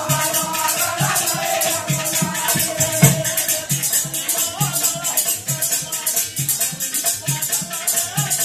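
Folk bhajan music: fast, steady jingling of a chimta (long metal tongs fitted with jingles) over a regular low drum beat, with a wavering melody line above.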